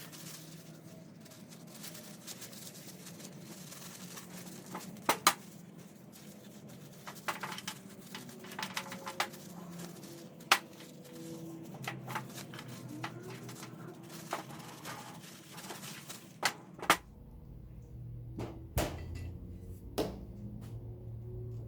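Scattered clicks and knocks of hand work, parts and tools being handled, over a low steady hum. About seventeen seconds in the background changes abruptly to a deeper hum.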